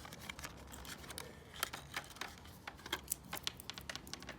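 Scattered light clicks and taps of small objects being handled, several a second at irregular intervals: a cleaning tablet and the portafilter with its backflush insert being set up for an espresso machine's cleaning cycle.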